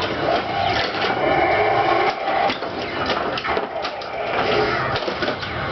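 1995 Bally Attack from Mars pinball machine in play: a rapid clatter of flippers, solenoids and the ball striking targets, over the game's electronic sound effects.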